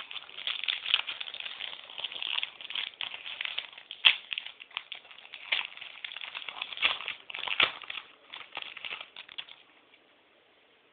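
Crinkling and crackling of a foil trading-card pack wrapper being torn open and handled, with rustling of the cards inside; it stops near the end.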